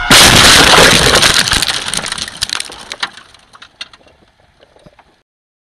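A car crash heard from inside the vehicle: a sudden loud impact with crunching and the windscreen shattering, then scattered cracks and tinkles of glass thinning out over a few seconds. The sound cuts off suddenly about five seconds in.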